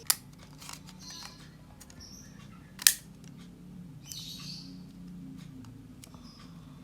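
Two sharp plastic clicks about three seconds apart, the second louder, as the snap-in clips of a Tecware Exo Plus mouse's plastic shell are pried loose. Birds chirp faintly in the background.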